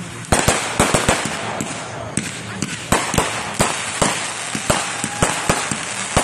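Aerial fireworks going off in rapid succession: a string of sharp bangs, about three or four a second, over a steady crackle.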